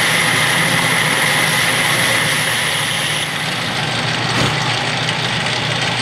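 Metal lathe boring out the bore of a cast cylinder head with a boring bar: a steady cutting hiss with a high whine over the lathe's running drone. The cutting sound stops about three seconds in as the tool leaves the bore, and the lathe runs on with one soft knock about a second later.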